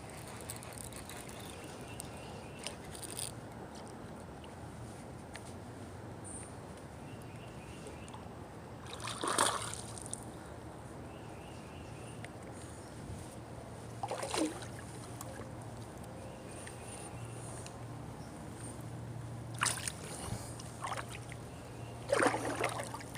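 Faint, steady trickle of shallow creek water with four short splashes while a hooked bass is brought in, the loudest about nine seconds in.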